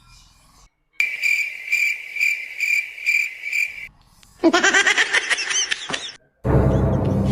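Cricket chirping, a steady pulsing chirp for about three seconds, then a short burst of warbling, twittering calls; music comes in loudly near the end.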